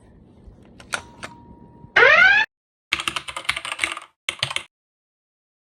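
A faint steady beep, then a short loud tone sweeping upward, followed by two runs of rapid clicking like typing on a computer keyboard.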